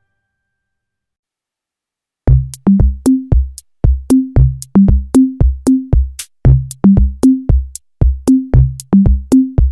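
Near silence for about two seconds, then electronic dance music starts abruptly: drum-machine kicks and a deep bass line in a steady, fast beat.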